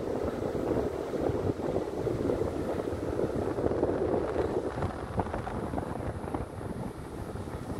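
Wind buffeting the microphone on a moving motorcycle, over a low rumble of road and engine noise. The rush eases a little in the second half.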